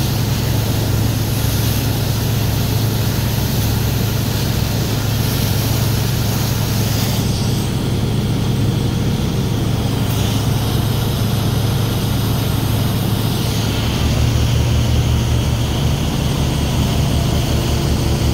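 Motorboat engine running steadily at speed, a constant low drone that shifts slightly about fourteen seconds in, under the rush of wind and churning water from the wake.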